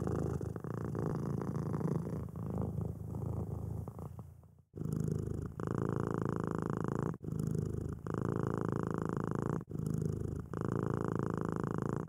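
A cat purring steadily, in long stretches broken by short pauses, the clearest a little under five seconds in.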